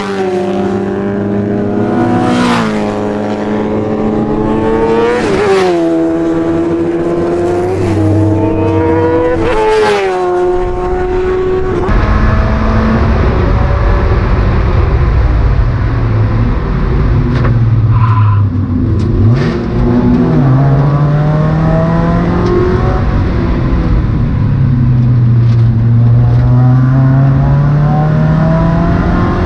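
Mazda MX-5 race car's four-cylinder engine at full racing effort. For the first dozen seconds it revs hard up through the gears, the pitch climbing and dropping back at each upshift. After that it is heard from the cockpit under steady wind and road rush, the revs rising and falling through the corners with a deep dip for braking and a downshift about two-thirds in.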